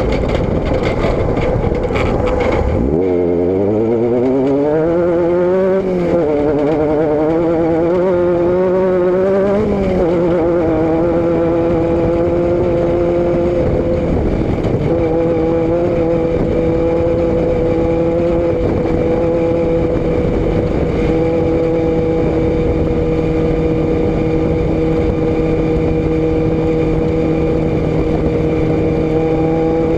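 Vehicle engine and exhaust under way, with road and wind noise. Its pitch drops about three seconds in, then climbs unevenly as the vehicle accelerates until about ten seconds in, and after that holds a steady cruising note.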